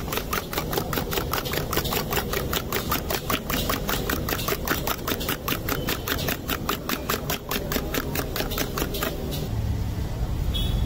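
Metal spoon beating eggs in a steel tumbler: a rapid, even clatter of about five strokes a second that stops near the end, over a steady low rumble.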